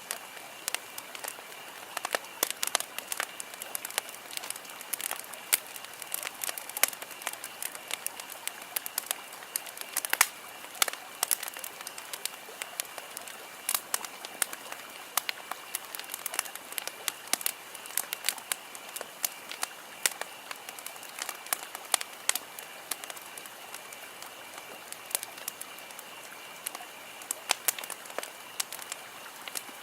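Campfire crackling: wood burning with frequent, irregular sharp pops and snaps over a steady hiss.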